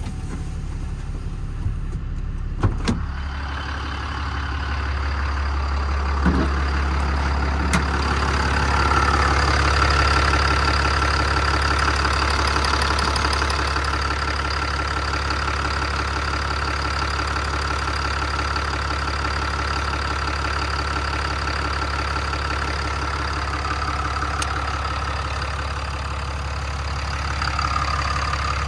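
Ram 5500's Cummins diesel engine idling. A few sharp knocks in the first three seconds, then a steady whine sets in from about eight seconds in.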